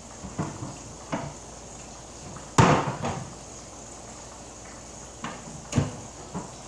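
Kitchen cupboard doors and items on the counter knocking and clattering as they are handled: about seven sharp knocks, the loudest about two and a half seconds in.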